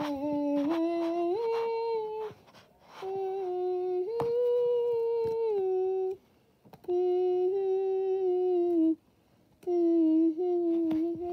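A person humming a tune in long held notes that step up and down in pitch, in four phrases with short pauses between them.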